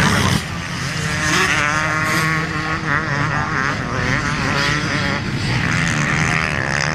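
Motocross motorcycle engines revving, the pitch rising and falling over and over as the throttle is worked. The sound drops and changes character about half a second in.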